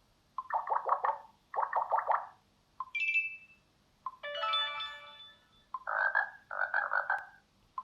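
A Xiaomi Mi 9 Lite smartphone's speaker playing a run of short built-in sound effects one after another, each starting with a tiny click. There are two warbling croak-like sounds, a brief high beep, a longer chime that fades out, then two buzzy sounds.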